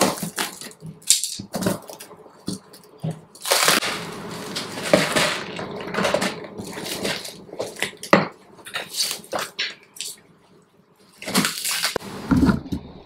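A small knife slitting packing tape on a cardboard box, then the tape and cardboard flaps tearing and rustling as the box is pulled open and the contents and plastic wrapping are handled, in irregular scrapes and crinkles.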